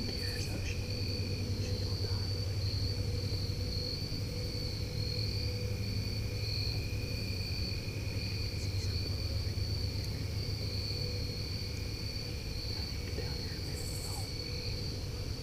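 Steady chorus of crickets trilling without a break at two pitches, one high and one lower, over a constant low rumble.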